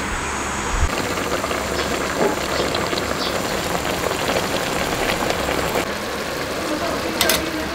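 A pot of taro stems braising on the stove, bubbling and hissing steadily with small crackles, and a single sharp clink near the end.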